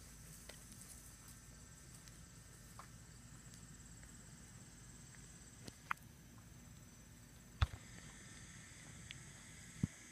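A few scattered footsteps and taps from someone walking on pavement, the sharpest about three-quarters of the way through, over a steady high-pitched insect drone.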